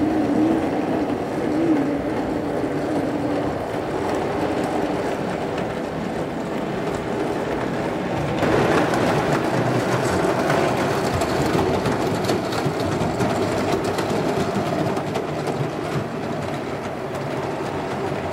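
O gauge model tank locomotive running on its track, hauling a string of goods wagons. There is a steady mechanical running noise with light clicking from the wheels on the rail. The noise grows a little louder about halfway through as the train passes close by.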